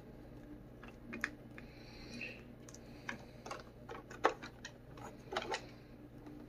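Plastic clicks and light knocks as a Roomba 770's battery cover is laid over the freshly fitted battery and pressed into place, a few scattered taps over a faint steady hum.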